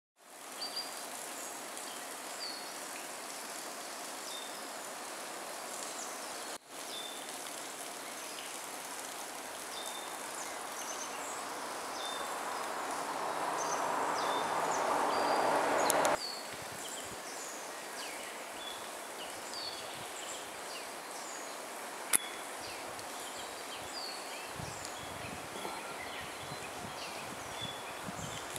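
Outdoor ambience of small birds chirping again and again in short, high calls over a steady hiss. A rushing noise swells for several seconds and breaks off suddenly about sixteen seconds in, and there is a single sharp click a few seconds later.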